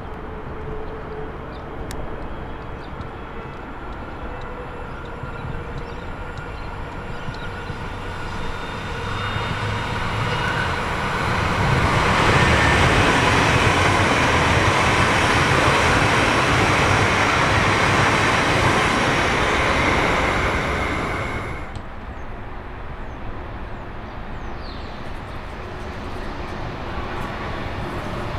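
Melbourne suburban electric train passing close by: the noise builds over a few seconds, holds loud for about nine seconds, and cuts off sharply as the last carriage goes by. Near the end the next train's approach starts to be heard.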